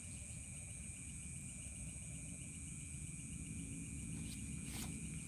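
Crickets chirring steadily at night in a fast, even pulsing trill, with a higher steady insect hiss above it and low steady noise underneath.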